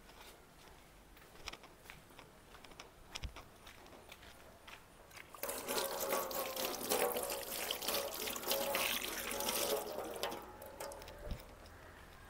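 Running water, a steady splashing rush that starts about five seconds in and stops about four seconds later. Before it, only faint small snaps and rustles of leafy amaranth stems being stripped by hand.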